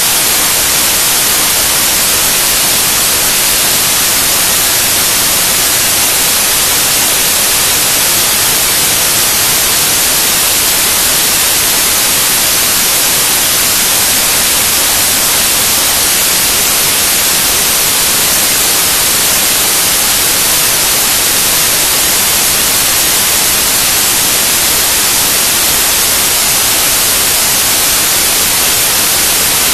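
Loud, steady static hiss, strongest in the high end and unchanging throughout: the raw bytes of a computer video file written to a Mini DV tape and played back as the tape's audio.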